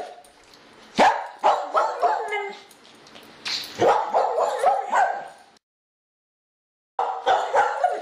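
Short barks and yelps like a dog's, in quick bunches. They cut to dead silence for over a second about five and a half seconds in, then start again.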